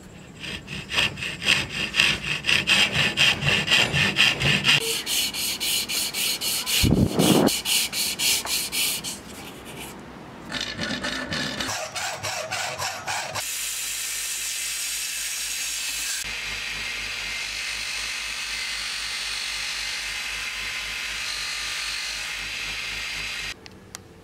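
A hand rasp scraping a pine wooden handle clamped in a vise, in quick rhythmic strokes of about three a second, later faster. After a short break come more strokes, then a steady hissing noise that cuts off near the end.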